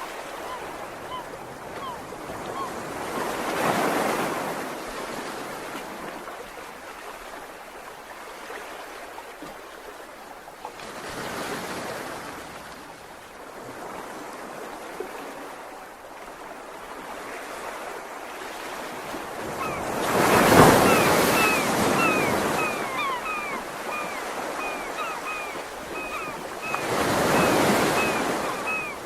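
Ocean waves breaking on a shore, each wave swelling up and washing away, four times and about seven seconds apart, the third the loudest. Birds chirp over them, many short falling calls, thickest near the end.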